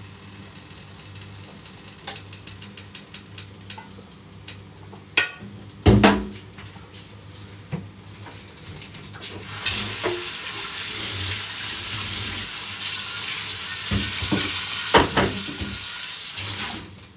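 Tap water running into a sink in a steady hiss for about seven seconds, then shut off just before the end. Before it come a run of light clicks and two loud knocks, like things being handled and set down.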